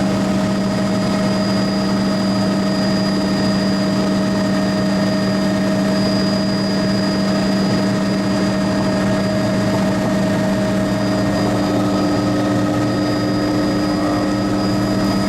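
Helicopter in flight: a steady, loud drone of engine and rotor with a constant high whine, unchanging throughout.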